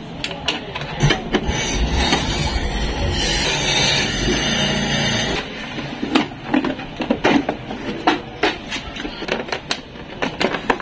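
Clicks, taps and rattles of a screwdriver, screws and a wire basket as the front basket and plastic leg-shield panel of a motorcycle are unscrewed and pulled off. A steady rushing noise with a low hum runs under the clicks for a few seconds near the start, then stops.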